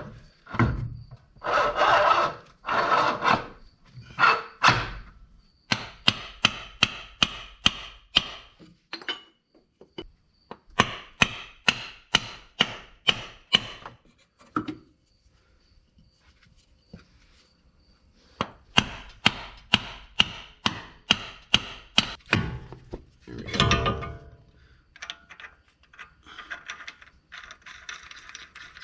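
Hand tools at work on a car's front suspension while a CV axle is being fitted: several runs of sharp knocks, about four a second, with rubbing and scraping in between.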